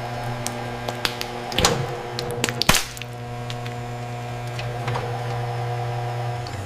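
Hydraulic press running with a steady electric hum, with several sharp cracks of the object under the ram giving way, the loudest a little under three seconds in.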